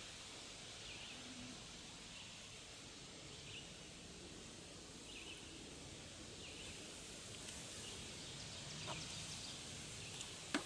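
Faint outdoor ambience: a bird chirping over and over, a short call about every second and a half, over a steady background hiss, with a light click near the end.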